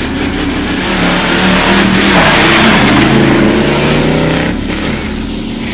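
Two pickup trucks launching side by side in an off-road drag race, engines revving hard as they accelerate away. The sound is loudest about two to three seconds in, with the engine pitch rising, then eases off as the trucks pull away.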